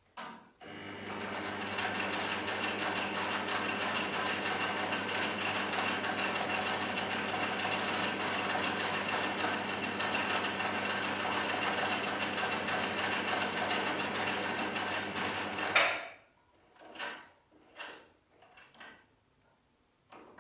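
Electric sewing machine stitching fabric: it starts a moment in and runs steadily for about fifteen seconds, a low motor hum under a fast even needle chatter. It then stops with one loud click, and a few separate clicks and knocks follow as the machine is handled.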